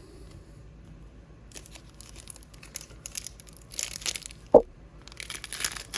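Trading-card pack wrapper being torn open and crinkled by hand, in a series of rustling tears that start about a second and a half in. One sharp click stands out about four and a half seconds in.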